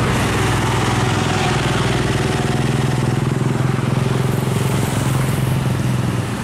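Road traffic passing close: a heavy truck's diesel engine running steadily, with a minibus and a motorcycle going by.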